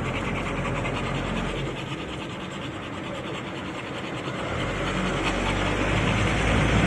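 Camper van on the move, heard from inside the cab: steady road and engine noise, with the engine's low drone growing louder in the second half.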